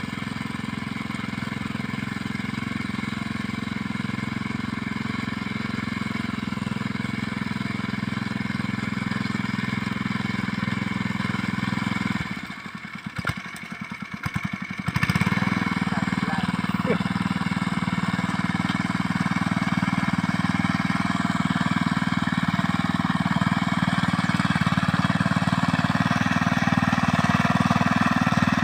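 Small engine of a mini rice-paddy plough running steadily. About twelve seconds in it drops to a slow, uneven putter for two or three seconds, then picks up again to full running.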